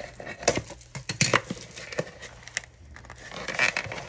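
Hands handling a small cardboard mug box and its packaging: a run of sharp clicks and knocks, the loudest a little over a second in, with a rustle of paper near the end.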